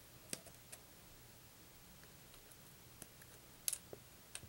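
Faint, scattered clicks and taps of hard plastic Gundam model kit parts and runners being handled, about six at uneven intervals, the loudest a quick pair near the end.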